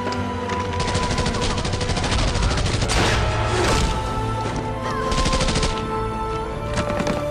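Rapid bursts of gunfire, many shots in quick succession, thickest between about one and three seconds in and again near the end, over a film score with long held notes.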